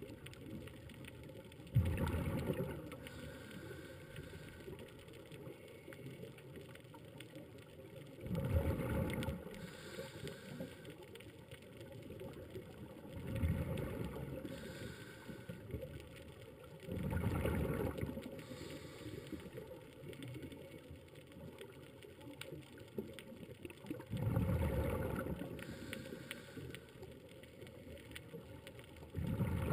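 A scuba diver breathing through a regulator: bubbly rushes of exhaled air come about every five or six seconds, six times, with a fainter hiss of inhaling between them.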